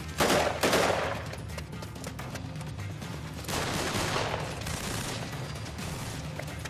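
Rapid gunfire in a film shootout: a loud burst of shots about a quarter second in, lasting about a second, and another volley about three and a half seconds in, over a steady music score.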